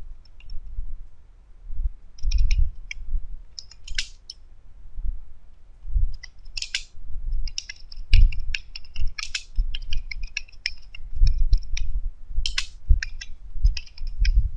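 Typing on a computer keyboard: irregular key clicks, each with a low thud, coming in short runs and pauses.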